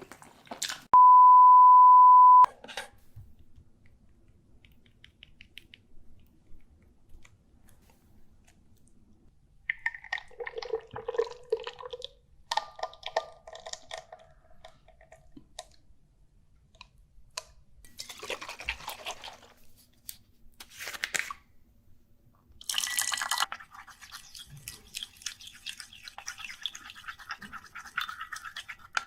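A loud, steady, single-pitched beep lasting about a second and a half near the start, then scattered eating noises: chewing and crunching with occasional scrapes and rustles.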